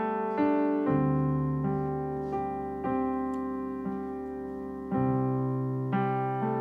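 Yamaha MOXF8 keyboard playing a piano sound in slow, held chords, with a new chord struck every second or two.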